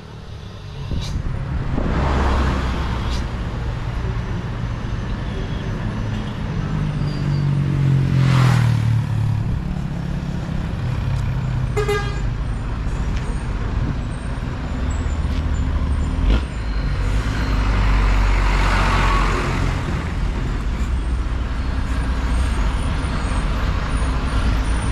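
Roadside traffic: heavy diesel trucks rumbling, with vehicles passing close about two, eight and nineteen seconds in. A short vehicle horn toots about twelve seconds in.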